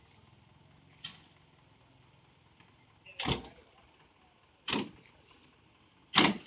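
A dump truck unloading gravel: its diesel engine hums low and steady while three loud sharp bangs come from the truck about a second and a half apart, after a fainter knock about a second in.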